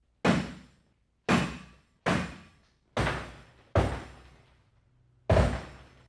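A 25-pound battering ram slamming into a locked door six times at uneven intervals, each a heavy sudden thud that fades out over about half a second. The lock holds and the door stays shut through every blow.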